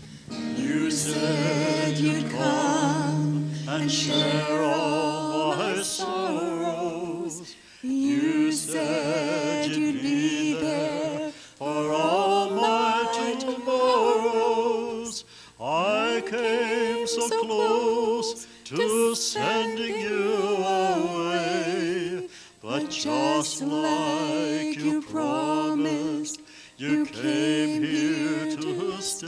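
A mixed vocal quartet of two men and two women singing a church song into microphones, in sustained phrases with vibrato and short breaks between lines.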